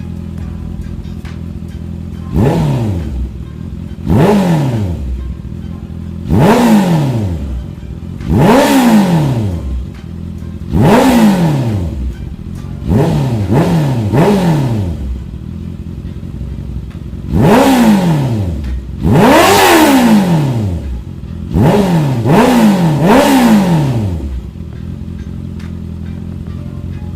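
Honda CB650R's inline-four engine idling, then blipped about a dozen times, each rev climbing sharply and dropping straight back to idle, several in quick pairs and a triple. It settles back to a steady idle near the end.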